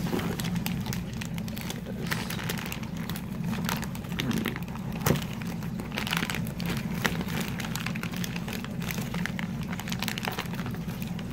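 Plastic shipping mailer crinkling and crackling as it is pulled open and off a cardboard box, in irregular bursts of rustle, over a steady low hum.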